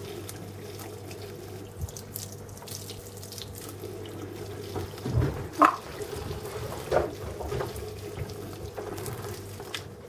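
Hot water running steadily from a kitchen tap into the sink, with a few short knocks about halfway through as the plastic ice-pop mould is handled under the stream.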